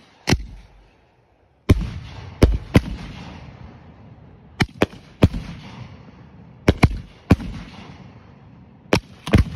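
A 50-shot Mortal Instruments peanut firework cake firing: about a dozen sharp shell bursts come in uneven clusters, each trailing off in a fading echo, with a short lull about a second in.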